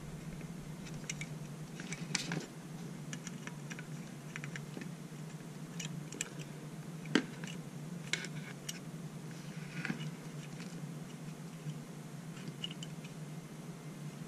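Scattered small clicks and scrapes of needle-nose pliers and a stripped wire being worked against a jack terminal in an aluminium pedal enclosure, the wire being wrapped on for a mechanical connection. The sharpest click comes a little past seven seconds in, over a steady low hum.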